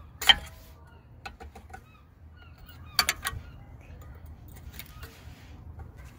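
Screwdriver tip pressing and tapping against the front brake caliper's metal spring clip, making sharp metallic clicks: one loud click just after the start, a few lighter ones, and a quick cluster about three seconds in.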